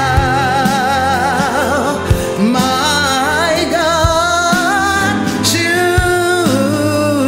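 A woman singing a slow gospel hymn, holding long notes with a wide vibrato, over instrumental accompaniment with a soft beat about every two seconds.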